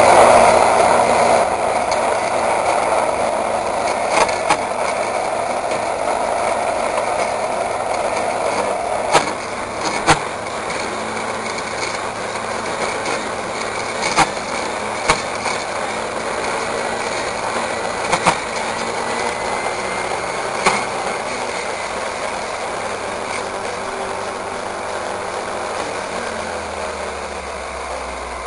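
Petrol brush cutter's engine running hard as its blade cuts through weeds and grass, with a few sharp clicks scattered through. It is loudest at the start, then runs steadily, and its engine note drops lower near the end.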